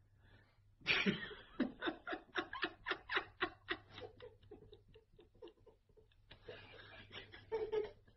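A person laughing: a long run of short rhythmic ha-ha pulses, about three or four a second, that starts about a second in and fades over a few seconds.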